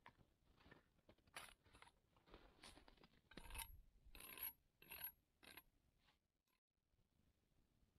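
Handling sounds at a campfire: a string of short scrapes and rubs, loudest about halfway through, then quieter.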